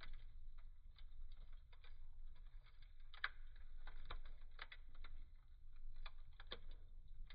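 Wood fire burning in a fireplace, the logs crackling in sharp, irregular pops and snaps over a low, steady rumble of the flames.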